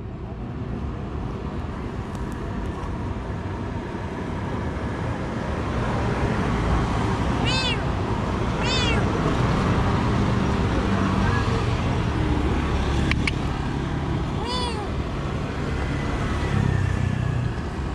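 A stray cat meowing three times: two short high-pitched meows close together, then a third a few seconds later, over steady traffic noise.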